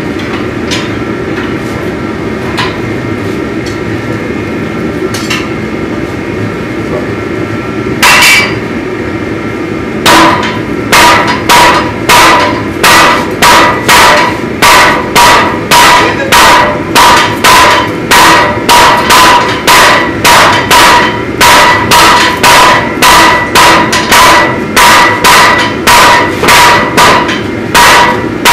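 Smiths forging hot steel on an anvil in turn with hand hammers. After a steady rush and one lone blow, an even rhythm of ringing hammer strikes starts about a third of the way in and runs at a little under two strikes a second.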